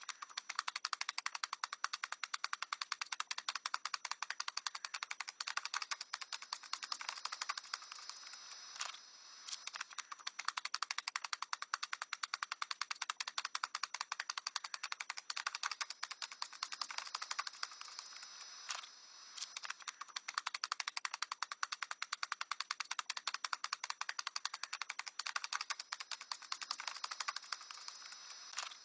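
A parrot tap dancing: rapid, dense runs of light taps on a hard surface, broken by a few brief pauses.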